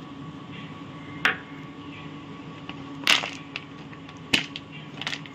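Four sharp clicks or taps spread over a few seconds, above a steady low hum.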